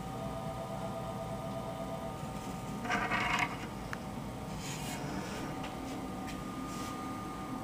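A brief scraping rub from handling on the paper-lined floor of a leopard gecko's enclosure, about three seconds in. It sits over a steady low hum, with a few faint clicks after it.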